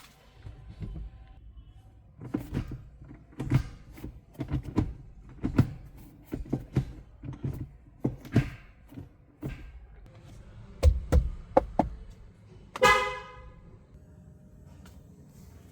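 A run of irregular sharp clicks and knocks from the Suzuki S-Cross, then a single short honk of its horn about two seconds before the end.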